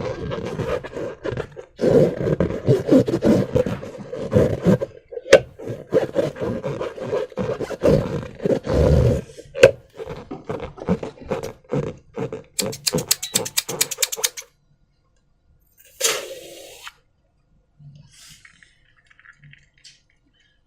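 Rubber balloons and slime being worked by hand: dense rubbing and scraping with many sharp clicks, a fast run of clicks past the middle, one short burst after it, then only faint handling sounds.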